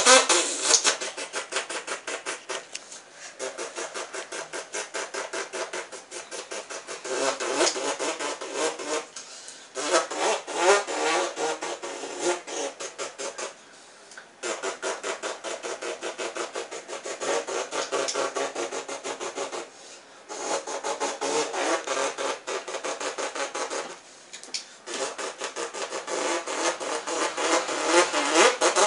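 A person imitating a stock car engine with their mouth: a fast buzzing engine noise whose pitch rises and falls like revving. It comes in long runs broken by five short pauses for breath.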